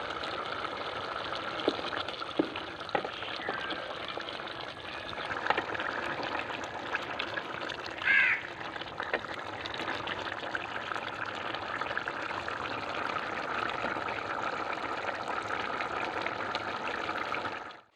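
Beef liver masala simmering in its own juices in the pan: a steady bubbling hiss with small pops. There is one short bird call about eight seconds in.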